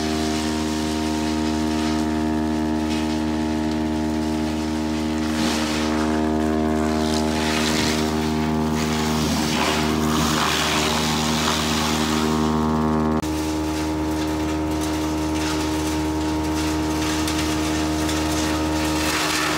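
Sawmill machinery running with a steady many-toned drone. A hissing, rushing noise rises over it from about five seconds in and fades near thirteen seconds, when part of the drone drops out.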